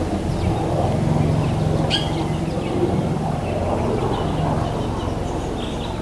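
Outdoor ambience: a steady low rumble with a few faint, short bird chirps, one sharper chirp about two seconds in.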